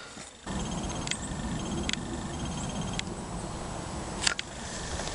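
Steady low rumbling noise on a handheld camera's microphone outdoors, with a few sharp clicks and faint high chirping trills.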